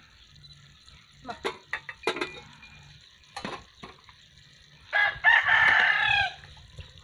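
A rooster crowing once, a call lasting about a second and a half, starting about five seconds in.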